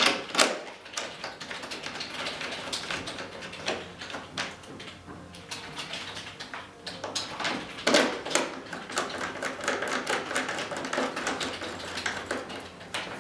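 Irregular clicks and taps of a hand driver and a metric metal bolt as the bolt is screwed into the wing root and snugged down to hold the wing on.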